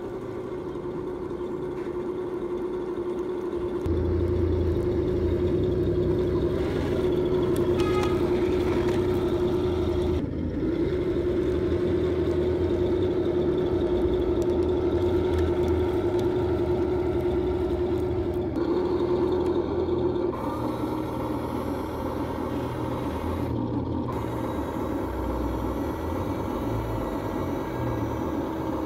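Heng Long 1/16 radio-control KV-1E tank running as it drives over grass: a steady mechanical whine, joined about four seconds in by a deeper rumble that eases somewhat near the end.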